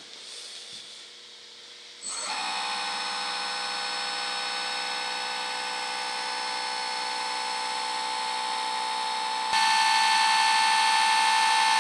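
Electric hydraulic pump of an RC4WD 1/14-scale Caterpillar 797F mining truck whining at a steady pitch as its rams lift the dump bed. It starts about two seconds in and is louder near the end.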